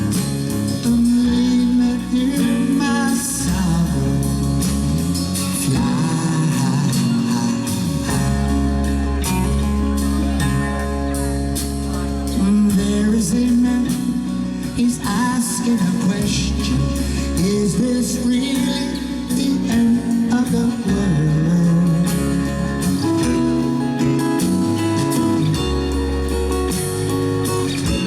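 A song with guitar and singing, at a steady loud level.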